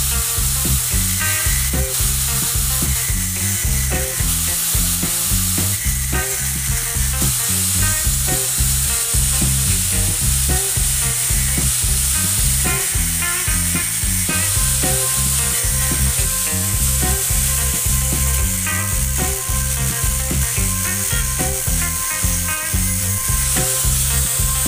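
Angle grinder disc grinding steadily against the metal casing of a universal electric fuel pump held in a vise, a continuous high hiss of disc on metal.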